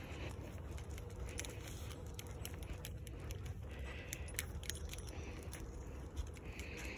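Light metallic clinking from two Westies' leash clips and harness or collar tags as the dogs walk on a split double leash. Many small, irregular clicks sound over a steady low rumble.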